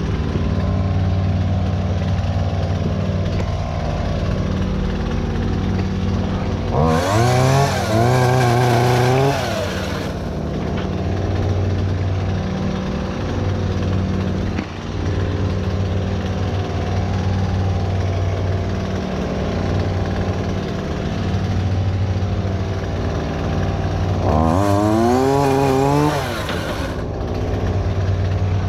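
Chainsaw revving up and cutting twice, each burst lasting two to three seconds, over another engine idling steadily.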